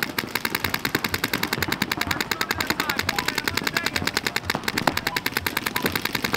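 Paintball markers firing rapid, even streams of shots, many a second without pause.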